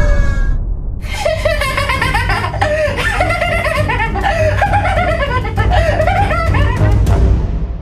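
A young man laughing loudly and maniacally, a long run of rapid 'ha-ha' bursts that starts about a second in and fades out near the end, over a steady low rumble.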